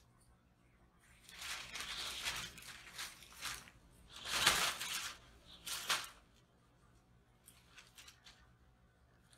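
Scratching and rustling as cats move in and against a white plastic top-entry cat box. There are four rough, scratchy bursts, the loudest about four and a half seconds in, then only faint ticks.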